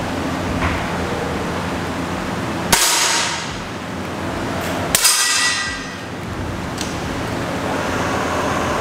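Two sharp air pistol shots about two seconds apart, each a crack followed by a short metallic ringing, over a steady low hum of room ventilation.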